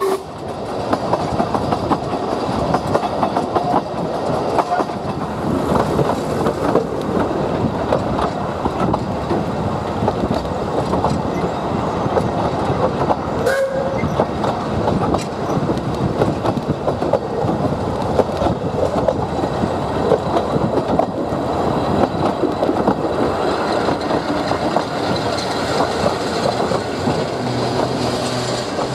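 Narrow-gauge train of the Talyllyn Railway running, with a dense, irregular clatter of wheels on the track and a brief short note about halfway through.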